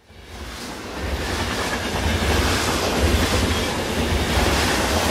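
00 gauge model trains running on a layout: a steady low motor hum with the wheels rattling and clicking along the track. It rises in over the first second.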